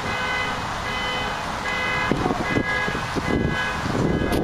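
A pitched beeping tone sounds on and off in a steady repeating pattern, then dies away about two seconds in. Irregular low rumbling and knocks take over, loudest near the end with a sharp click.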